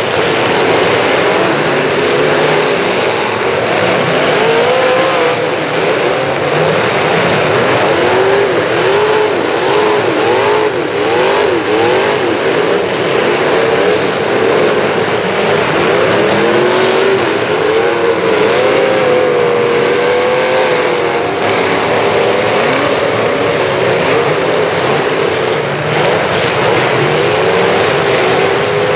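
Many fullsize demolition derby cars' engines running and revving together, their pitch rising and falling over and over.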